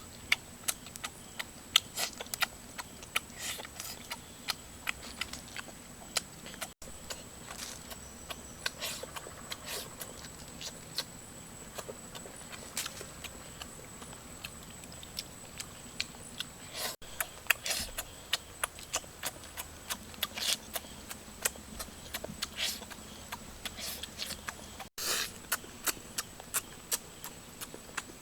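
A person eating close to the microphone: irregular sharp clicks and smacks of chewing and biting, several a second and uneven in strength.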